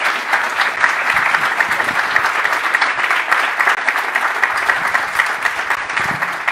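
Audience applauding: many hands clapping steadily and densely, with no break.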